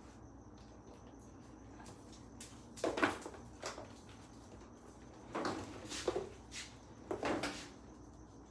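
Kitchen handling noises: several short knocks and clatters in a few bunches, like cookware or cabinet doors being moved about at the counter. A faint high steady whine sits underneath.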